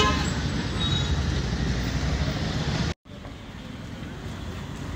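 Steady outdoor street noise with a low traffic rumble. It drops out abruptly about three seconds in and comes back quieter.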